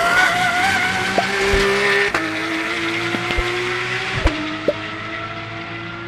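Pagani Huayra R Evo's naturally aspirated 6.0-litre V12 running hard on track, its pitch dropping sharply twice, about two and four seconds in, with a click at each gear change.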